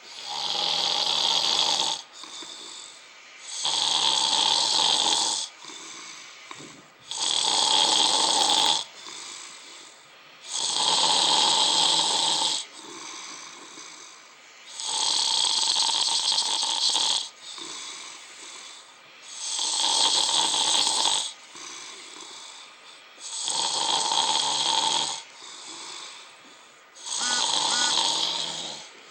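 A man snoring loudly, with eight snores spaced about every four seconds, each lasting around two seconds.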